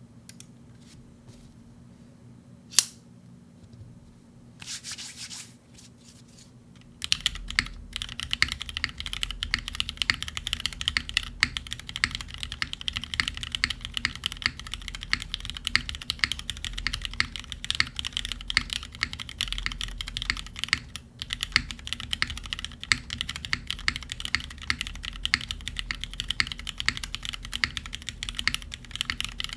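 Fast, continuous typing on a custom 60% mechanical keyboard with lubed Cherry Vintage Black linear switches on an aluminum plate and GMK keycaps: a dense stream of key strokes that starts about seven seconds in. Before that come only a few isolated clicks, one sharp loud click near three seconds, and a short rustle.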